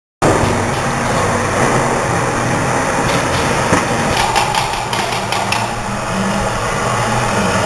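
Automatic yogurt-cup filling and sealing machine running: steady mechanical noise with repeated clicks and clacks of its moving parts, starting suddenly.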